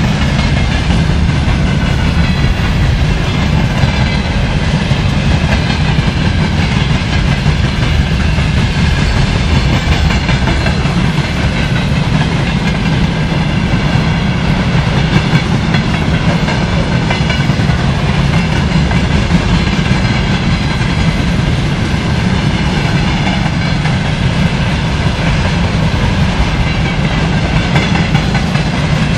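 Freight wagons (boxcars and tank cars) rolling past close by: a steady heavy rumble with the clatter of steel wheels on the rails and a faint high ringing over it.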